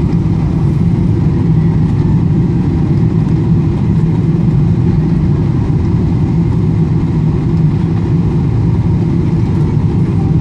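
Cabin noise inside a Boeing 777-300ER on final approach: the steady low rumble of its GE90 engines and the airflow over the airframe, even in level throughout.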